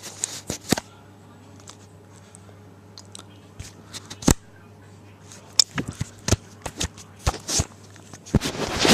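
Scattered clicks, taps and rustles of objects being handled, with a louder rustling burst near the end, over a steady low hum.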